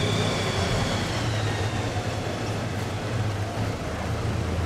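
A vehicle engine running steadily, a low hum under a wash of noise, with a faint high whine that fades out in the first couple of seconds.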